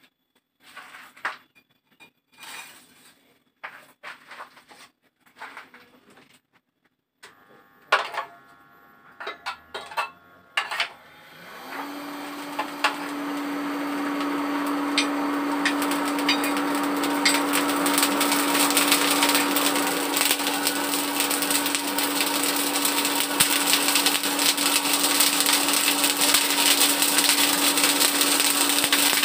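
Several light knocks and clicks of metal being handled, then about twelve seconds in an electric motor starts and runs steadily with a loud rasping hiss that builds over a few seconds.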